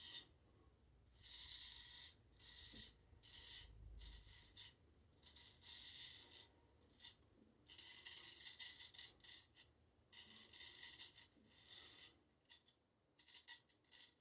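Straight razor, a Boker 8/8 Damascus, scraping over lathered stubble in a series of short, faint strokes with pauses between them: touch-up passes catching the odd loose hair.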